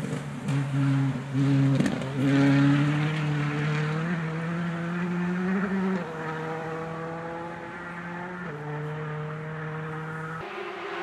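Rally car engine under hard throttle on a loose gravel stage. The pitch climbs, then steps back and climbs again several times as it changes gear, with a hiss from the tyres on the wet surface.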